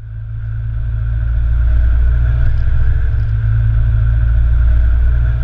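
1959 MGA roadster's 1600 cc four-cylinder engine running steadily while the car is driven, a deep rumble that fades in over the first second or so.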